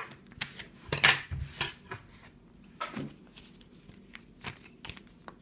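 Tarot cards being gathered and shuffled by hand: a scattering of light clicks and rustles of card stock, the sharpest about a second in and about three seconds in.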